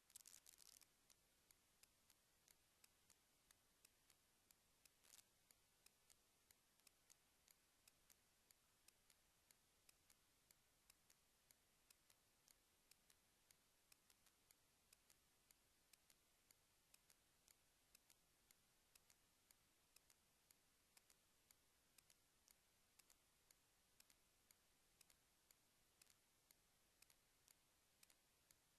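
Near silence: faint hiss with many faint, short clicks, about two or three a second, and a brief scratchy noise at the start and another about five seconds in.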